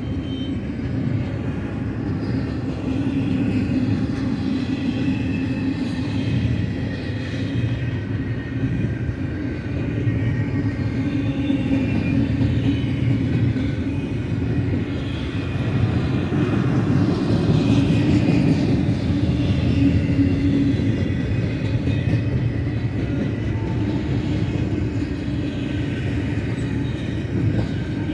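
Double-stack container train's well cars rolling past: a steady rumble of steel wheels on rail, with faint high tones above it, growing a little louder about two-thirds of the way through.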